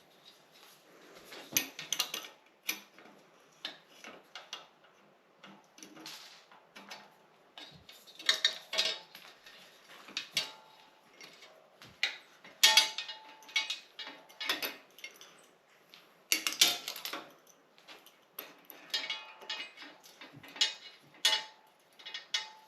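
Spanner and steel bicycle parts clinking and clanking in irregular bursts as the mudguard fittings of a Raleigh Triumph Twenty are undone; some clanks ring briefly.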